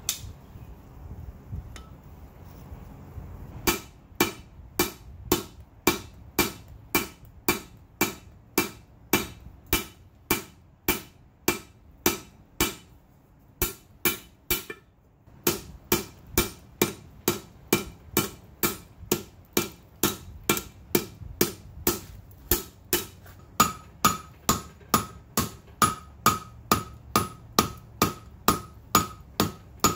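Blacksmith's hand hammer striking red-hot steel on an anvil, drawing down the reins of a pair of tongs. The blows come steadily at about two a second, starting a few seconds in, with a pause of about two seconds midway. In the later blows the anvil rings at a steady pitch.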